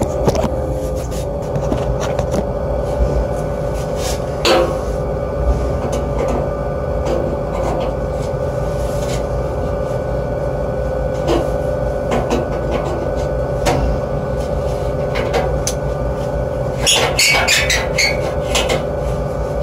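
Hartzell gas-fired heating unit running after its cleaned UV flame sensor let it fire: a steady hum with a constant tone and a low rumble. Scattered clicks and knocks sound over it, about four and a half seconds in, around eleven to fourteen seconds, and in a cluster near the end.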